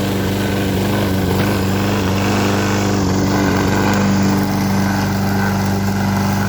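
Briggs & Stratton lawnmower's small single-cylinder engine running steadily at a constant speed.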